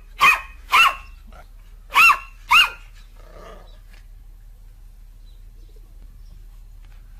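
A puppy barking: four short, high-pitched barks in two quick pairs, the second pair about two seconds in.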